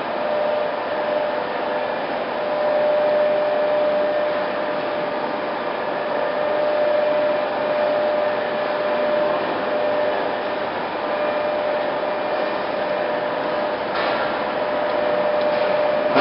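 A 1984 POREBA TCG 125 heavy-duty lathe running: a steady mechanical hum with a steady whine.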